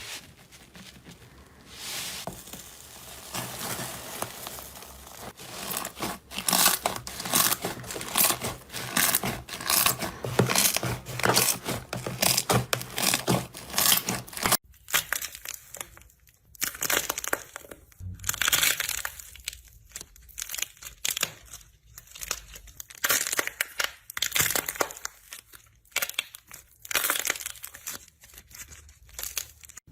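Hands squeezing and poking slime, making dense runs of crackling, crinkling noises. About halfway through, the sound changes to separate clusters of crackles with short quiet gaps between them.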